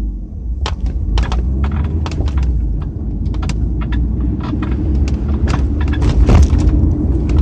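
Squeaking and creaking from around the rear hatch of a Mazda RX-7 (FD3S), the abnormal 'kyuko-kyuko' noise the owner is chasing. It comes as many short, irregular squeaks, several a second, over the car's steady low rumble on the move.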